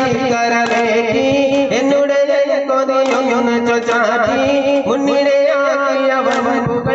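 Duff frame drums beaten in rhythm by a dancing troupe under a sung devotional melody, with a steady held note droning beneath.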